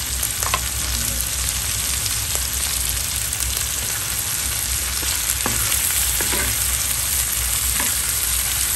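Whole shrimp frying in melted butter with garlic and chili in a pan: a steady sizzle with a few scattered pops.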